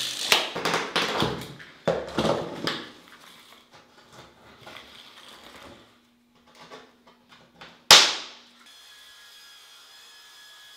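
Knocks and handling thuds as the foam shower-pan board and tools are moved about, then fainter rustling. About eight seconds in comes one sharp, loud knock with a brief ring, followed by a faint steady hum.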